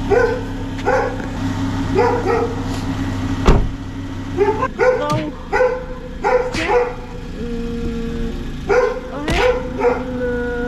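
A dog barking repeatedly, about once a second, with a couple of longer drawn-out notes later on, over the steady low hum of a car engine running at idle.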